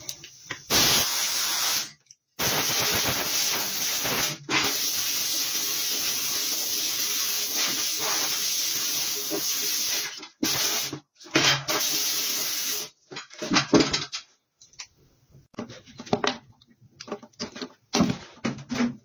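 Compressed-air blow gun hissing in long blasts as it blows out the inside of a car tire on a spreader stand. The blast cuts off about 10 seconds in, and another runs for about two seconds soon after. Short bursts and brief scraping noises follow.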